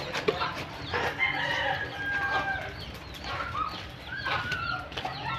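A rooster crowing about a second in, with other chickens clucking, over soft rustling as hands pack spring onions into a pig's opened belly cavity.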